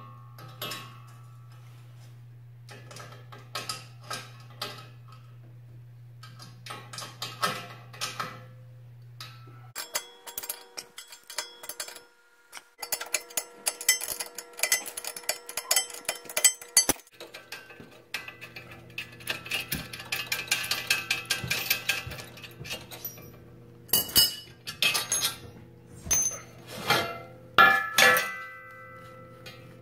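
Metal clinks, knocks and rattles from steel mounting brackets and hardware being handled and fitted. They come in several short segments and are loudest near the end, with a low steady hum under part of it.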